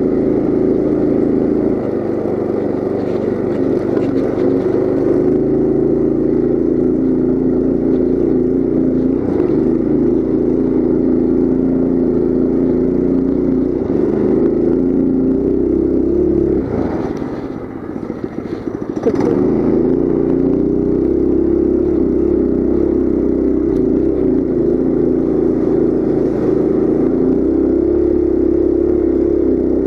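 Coleman CT200U mini bike's single-cylinder four-stroke engine running steadily under throttle. About 17 seconds in it eases off for a couple of seconds, then picks back up.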